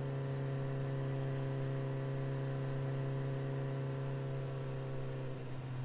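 A steady low hum with a few higher overtones that fade out near the end.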